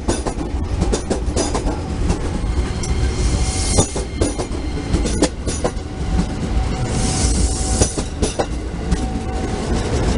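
205-series electric commuter train cars rolling past close by, with a constant low rumble and an irregular run of sharp clicks as the wheels cross rail joints. Two spells of high hiss come about three and seven seconds in.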